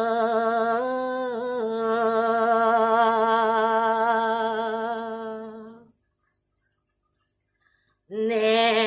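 A woman's unaccompanied solo voice holds a long, drawn-out note of a Balinese pupuh Ginada tembang, with small ornamental turns, and fades out about six seconds in. After about two seconds of dead silence, she comes back in singing near the end.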